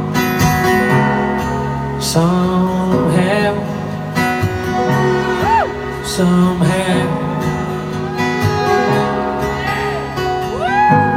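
Live band playing a slow country ballad: a male voice sings one drawn-out "somehow" about three seconds in, then acoustic guitar and band carry an instrumental passage with a few sliding lead notes.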